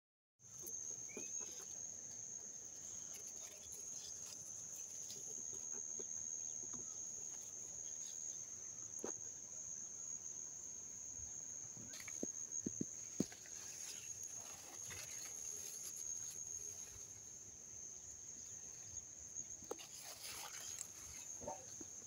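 A steady high-pitched insect trill, like crickets, holding one unbroken tone, with scattered light clicks and rustles of leaves.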